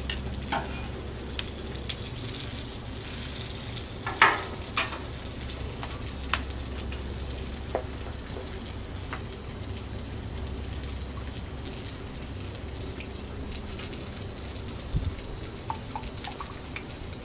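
Chicken strips and frozen waffles frying in oil on a hot Blackstone flat-top griddle: a steady sizzle with scattered small pops and clicks. A few sharper clicks stand out about four seconds in, and a short cluster comes near the end as a spatula stirs the sauce pot.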